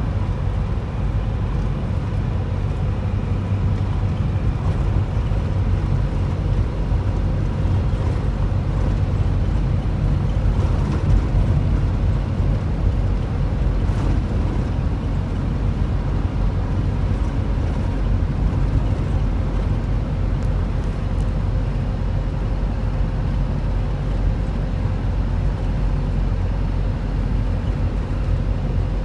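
Steady low engine and road rumble heard from inside the cab of a bus moving through traffic, with a faint steady hum and a single click about halfway through.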